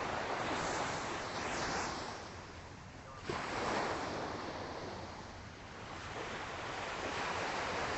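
Atlantic surf washing onto the beach, a steady hiss of water that swells and fades, with a wave breaking about three seconds in. Some wind on the microphone.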